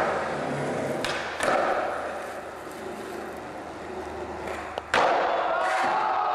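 Skateboard wheels rolling over steel plates, with sharp board clacks from pops and landings about a second in and again near five seconds. Near the end a steady pitched ringing tone comes in.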